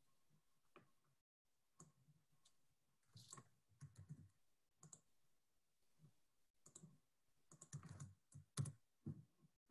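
Near silence with faint, irregular clicks and taps of a computer keyboard and mouse being used.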